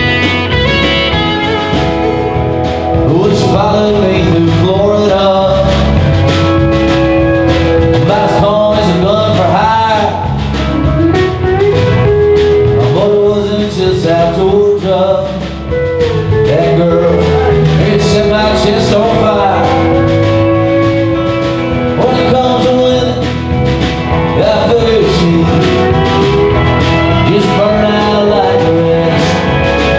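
Country-rock band playing live: guitars, bass and drums, with a lead melody that bends and slides in pitch over the steady beat.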